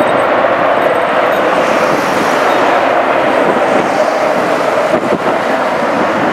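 Twin jet engines of an F/A-18F Super Hornet flying in the landing circuit between touch-and-goes: loud, steady jet noise, with some wind buffeting the microphone.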